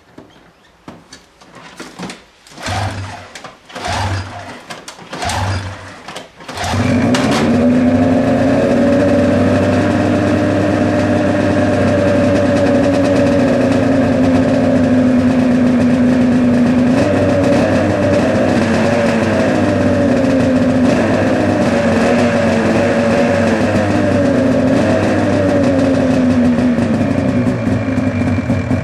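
Ski-Doo MXZ snowmobile's two-stroke engine being started: a few short sputters over the first six seconds, then it catches and settles into a steady idle.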